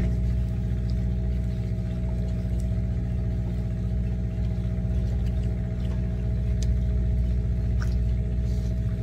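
Fishing boat's engine idling, a steady even hum that does not change, with a few faint clicks over it.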